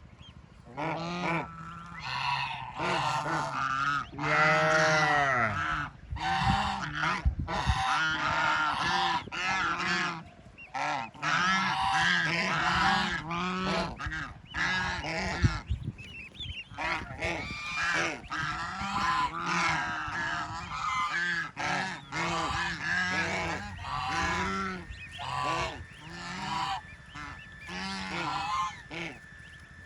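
A flock of waterfowl calling over one another, a near-continuous stream of short, loud, nasal calls with only brief pauses.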